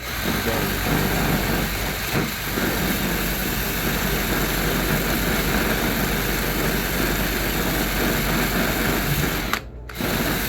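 Power wire brush spinning against the metal of an old bench vice, scrubbing off rust and coating in a steady harsh whir that stops briefly near the end and starts again.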